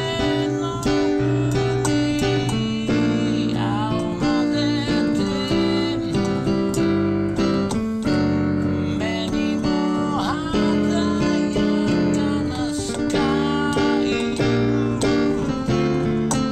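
Piano played with both hands, a continuous run of notes and chords, with a wordless voice singing along at a few moments.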